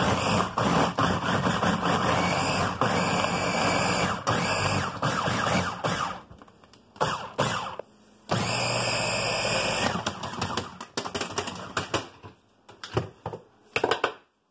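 Personal single-serve blender blending an Oreo milkshake of cookies, milk and ice cream. It runs for about six seconds and stops, runs again briefly a little after eight seconds, then gives a series of short pulses.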